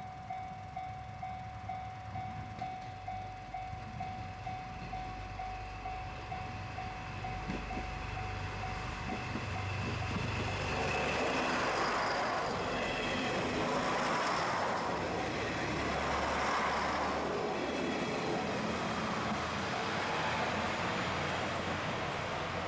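Japanese level-crossing warning bell ringing its steady twice-a-second clang. About halfway through the bell fades under a diesel train running through the crossing, a loud, sustained rumble and rail noise.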